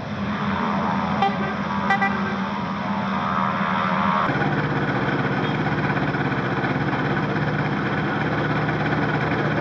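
An engine running steadily. About four seconds in its note drops to a lower, steady pitch. Two short sharp sounds come about one and two seconds in.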